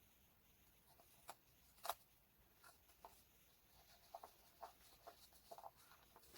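Faint scattered taps, clicks and short scratchy rustles of paper and stationery being handled while working on a journal page, with one sharper click about two seconds in.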